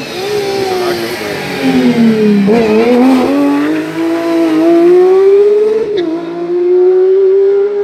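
Rally car engine coming off the throttle for a junction, its pitch falling for the first two seconds or so, then accelerating hard away with the pitch climbing, broken by a brief dip at a gear change about six seconds in.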